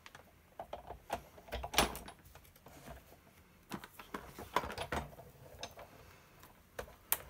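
Hands handling craft supplies on a tabletop: scattered light taps, knocks and plastic clicks as a die and cardstock are positioned on a die-cutting machine's plate and a plastic marker case is shifted. The loudest is a thump about two seconds in.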